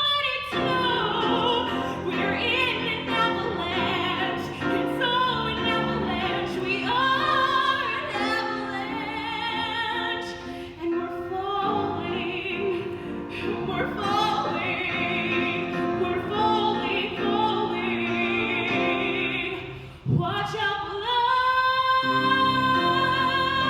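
A woman singing a musical-theatre song in a trained voice with vibrato, over accompaniment. About twenty seconds in she breaks off briefly, then holds a long, steady note.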